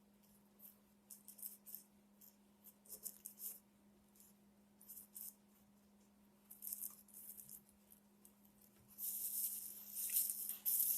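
Faint, scratchy strokes of cleaning the dirty mechanism inside an old Singer sewing machine, in short irregular bursts that become more continuous near the end, over a faint steady hum.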